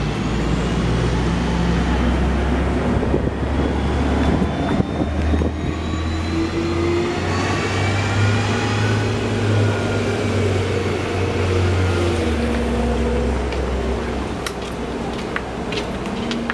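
Road traffic: motor vehicles running and passing close by, with a low engine hum that steps up and down in pitch and faint rising and falling whines above it.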